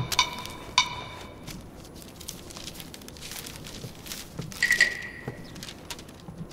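Paper rustling and crackling as a folded letter is opened by hand, following the last two hits of a wood-block percussion music cue; a short high note sounds about two-thirds of the way through.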